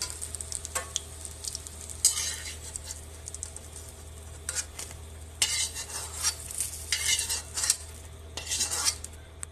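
Metal slotted spatula scraping across a wok in several short strokes as fried eggplant slices are scooped out of the hot oil, which sizzles lightly. A steady low hum runs underneath.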